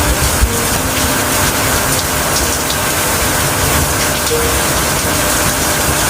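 Steady heavy rain: a dense, even hiss with scattered sharp drop ticks.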